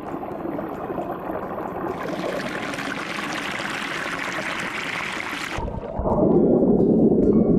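Stream water pouring and splashing over rocks in a steady rush. About six seconds in it cuts abruptly to a louder, deeper, muffled churning of water full of bubbles, heard underwater.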